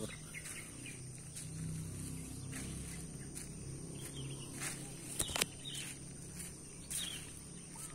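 Faint outdoor background: distant animal calls over a low murmur, a steady high thin whine, and a few scattered clicks, the sharpest a little past halfway.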